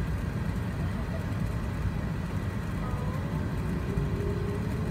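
Steady low rumble inside the cabin of a Qantas Airbus A380 taxiing at low speed: its Rolls-Royce Trent 900 engines at taxi power and the wheels rolling, with faint voices of other passengers in the background.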